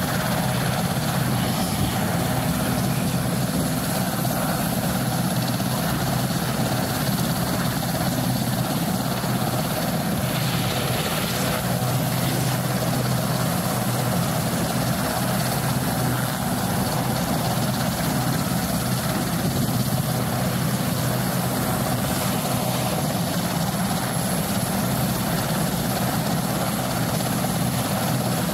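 RAF Westland Sea King helicopter running on the ground, its twin Gnome turboshaft engines and turning rotors making a steady, unchanging drone.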